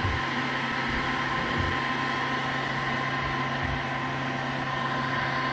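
Electric hot-air heat gun running steadily, its fan and heater giving an even drone with a low hum and a faint whine, as it warms glued PVC armoring film before rolling it down.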